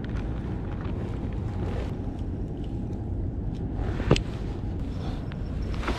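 Steady low outdoor rumble, with one sharp click about four seconds in as fishing tackle is handled.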